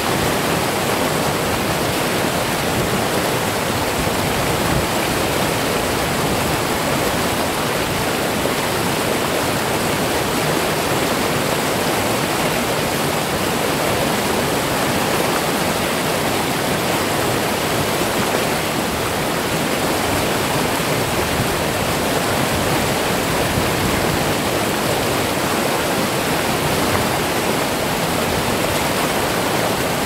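Rocky mountain stream rushing over boulders in white-water rapids: a steady, loud rush of water.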